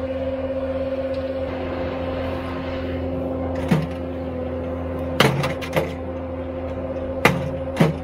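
Bobcat skid steer's engine running steadily while its hydraulic post hammer drives a wooden fence post: about six sharp bangs at uneven spacing, starting nearly four seconds in.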